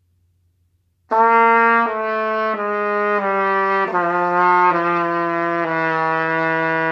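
Trumpet played starting about a second in: seven held notes stepping down in pitch one after another, each made lower by pressing valves that route the air through extra tubing.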